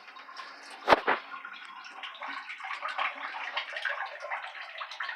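Water running from a bathtub and shower fixture into the tub, a steady rushing spatter, just after a new tub and shower cartridge was fitted. About a second in there is a sharp knock, followed by a smaller one.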